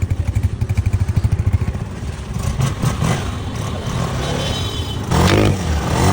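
Engine running with a rapid, even pulsing beat, then revved twice near the end, its pitch rising and falling each time.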